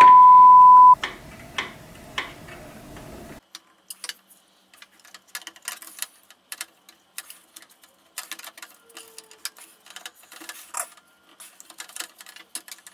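A loud steady censor beep lasting about a second at the start, then irregular small clicks and knocks of a GTX graphics card being worked loose from its slot inside a PC case.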